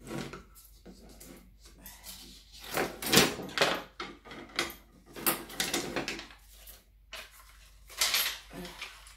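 A bundle of white clothes hangers with metal hooks being handled and unwrapped: repeated clattering and clicking as the hangers knock together, with rustling of packaging. The loudest clatters come about three seconds in and again near the end.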